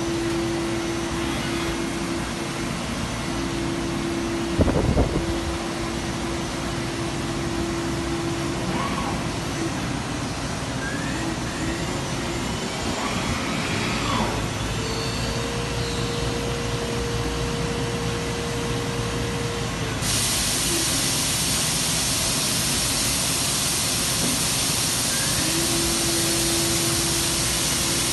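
DMG Mori NZX-S 1500 CNC turning center running, with a steady hum and a loud clunk about five seconds in. About two-thirds of the way through, a loud steady hiss sets in and continues.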